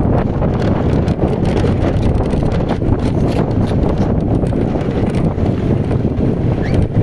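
Steady, loud wind rumble buffeting the microphone of a phone on a moving motorcycle, mixed with the bike's road noise.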